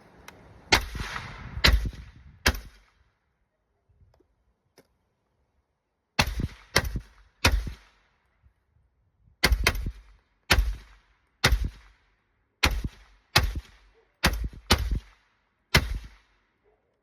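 Suppressed 300 Blackout rifle with a Quiet Riot 7.62 suppressor firing about fifteen shots in three strings: three quick shots, a pause, three more, then a longer string of about nine, using a mix of subsonic and supersonic rounds.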